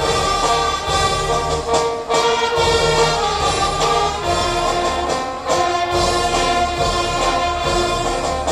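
Live brass band of trumpets, trombones and tubas playing a piece in held chords that change every second or so.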